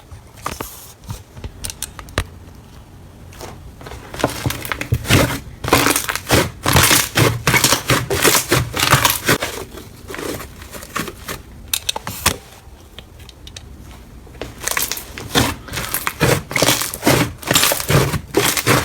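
Slime being squeezed and pressed by hand, giving dense crackling with rapid clicks. It comes in busy spells about a third of the way in and again near the end, with quieter stretches between.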